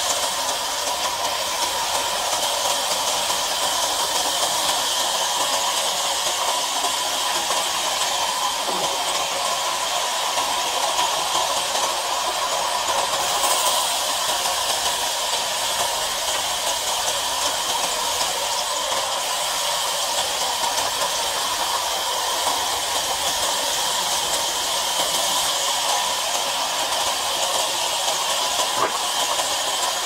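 Vertical band sawmill blade cutting lengthwise through a thick timber plank as it is fed through by hand: a steady, high hiss that does not pause.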